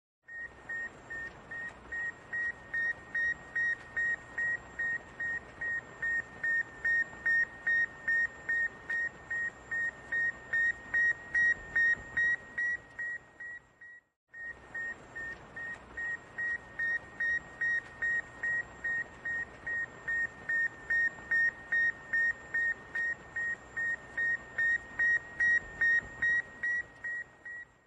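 Sputnik satellite's radio beacon signal: a high steady beep repeating about two and a half times a second over radio hiss, swelling and fading. It breaks off briefly about halfway through, then starts again.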